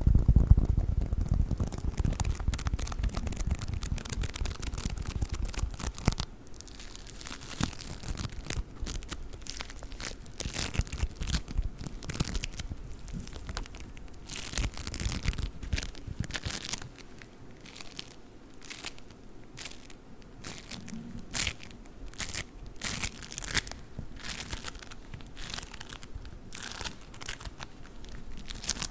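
Play foam being worked close to the microphone, giving a dense run of small crackles and crunches. The first few seconds sound fuller and deeper, then the rest is sparser, sharper snaps.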